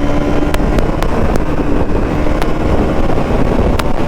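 Bajaj Pulsar NS200's single-cylinder engine pulling hard at high speed in fifth gear, its note holding steady, under heavy wind rush on the microphone.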